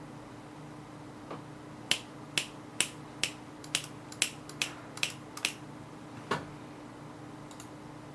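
Mechanical keyboard keys pressed one at a time: about ten sharp clacks at roughly two to three a second, then a single deeper, duller keystroke.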